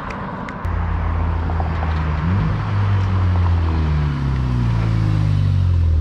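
Volkswagen Golf 6 GTI's turbocharged four-cylinder with a custom titanium exhaust: a deep exhaust drone that comes in suddenly about half a second in as the car drives up. The note rises briefly, then falls steadily as the car comes up close and slows.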